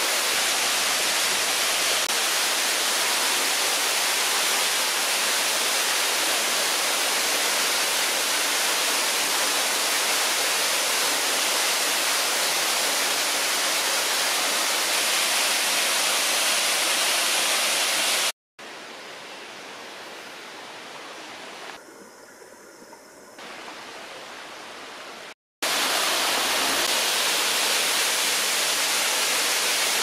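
Waterfall in full flow after rain, pouring through a rock arch into a cave pool: a loud, steady rush of falling water. Just past the middle it cuts out for a moment and runs much softer for several seconds, then comes back loud.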